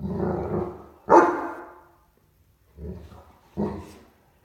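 Great Dane puppy barking and "talking" while in a play bow, inviting a cat to play: four deep barks, the first drawn out and the second the loudest.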